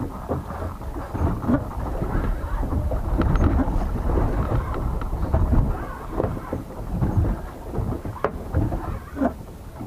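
Irregular low rumble and buffeting of wind and water around a small fishing boat at sea, with a sharp knock about eight seconds in.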